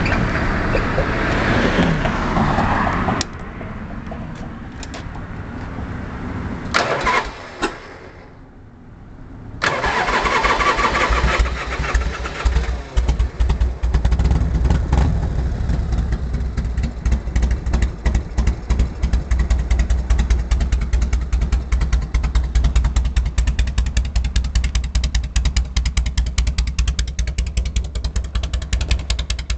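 Harley-Davidson Shovelhead V-twin through straight 3-inch Khrome Werks pipes with no baffles, loud. It drops away, then fires up again about ten seconds in with a burst of revs, and settles into a steady idle of evenly spaced exhaust pulses.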